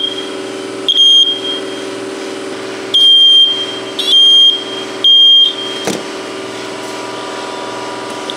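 Horn of a faulty First Alert smoke detector, running from a 9-volt battery on its bare circuit board, sounding short high-pitched beeps at uneven gaps, about five in all. It stops after a click about six seconds in. It is a faulty unit that beeps with no cause found and then quits.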